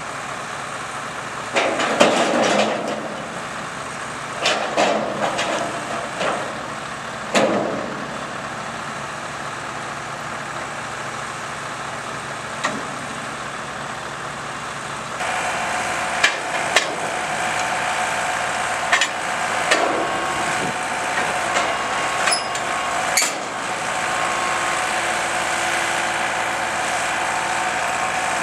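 Truck-mounted hydraulic crane running steadily while a steel highway barrier section is set down, giving four loud metallic knocks and clanks over the first several seconds. About halfway through, the crane's running turns louder, with a steady whine and a few sharp clicks as barrier sections are handled.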